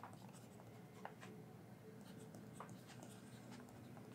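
Faint scratching of a stylus tip writing on a reMarkable 2 tablet's screen: a series of short pen strokes as words are handwritten.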